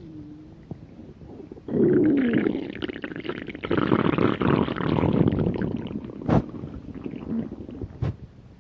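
A hungry stomach growling: a long gurgling rumble that starts suddenly about two seconds in and slowly fades, with two short sharp clicks near the end.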